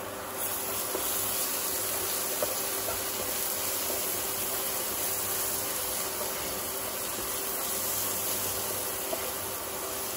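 Chopped onions and aromatics sizzling steadily in hot oil in a pan, a constant frying hiss as the salted onions soften.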